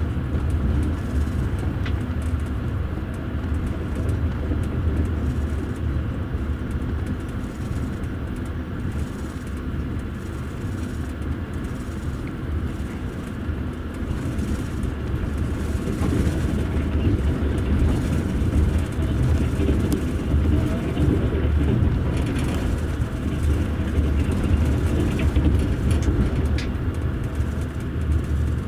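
Wheels of a double-deck passenger railway coach rolling along the track at speed, heard from inside the upper deck: a steady low rumble with a few faint clicks.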